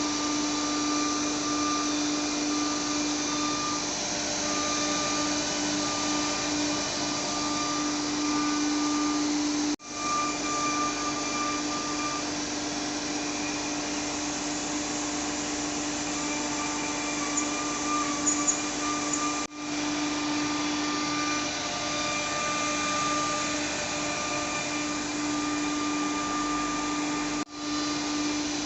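CNC router spindle running steadily as it carves wood, a loud even whine with a strong steady hum, briefly dropping out three times.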